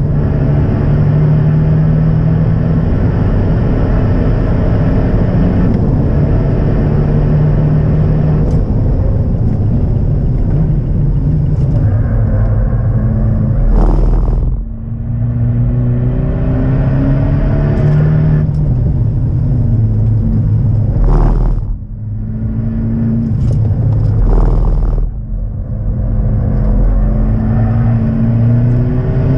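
Abarth 124 Spider's 1.4-litre turbocharged four-cylinder heard from inside the cabin while lapping a circuit. Its revs climb under hard acceleration, then fall away three times with a short burst of noise as the driver lifts off and changes down for corners, over a steady rumble of road and tyre noise.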